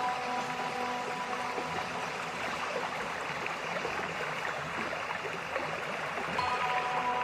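Stream water rushing over rock in a steady wash. Background music plays over it for about the first two seconds, drops out, and comes back about six seconds in.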